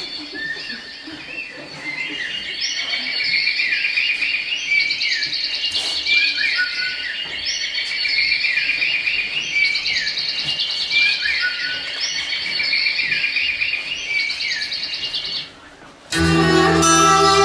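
Birdsong of repeated chirps and trills with short falling whistles, cutting off abruptly about fifteen seconds in. Bowed-string music, violin to the fore, begins about a second later.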